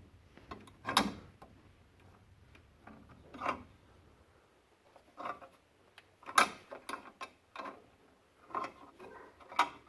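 Scattered sharp metallic clicks and clinks, roughly one every second, with the loudest about a second in and again past the middle, from C-clamps and tools being worked on a wheel hub.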